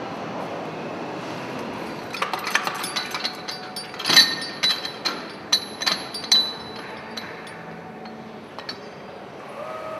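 Metal clinks and knocks as hydraulic stud-tensioning jacks are handled and lifted off the cylinder head studs of a diesel engine: a quick run of ringing clinks for a few seconds, the loudest about four seconds in, over a steady workshop hum. A steady tone comes in just before the end.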